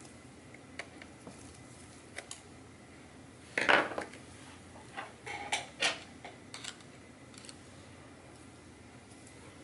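Small metal hand tools being handled on a wooden table: scattered light clicks and taps. The loudest is a clatter about three and a half seconds in, as a small screwdriver is laid down, and a few more clicks follow about a second later.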